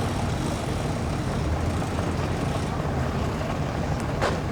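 Engines running with a steady low rumble, and a short sharp knock about four seconds in.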